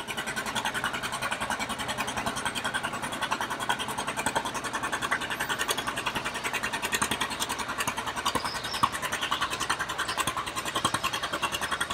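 John Deere two-cylinder tractor engine running with a steady, rhythmic exhaust beat, with one sharper pop about nine seconds in.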